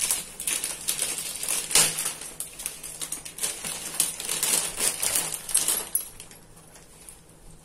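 Crinkling and rustling of the plastic packet of pav buns as the rolls are taken out. The irregular crackle stops abruptly about six seconds in.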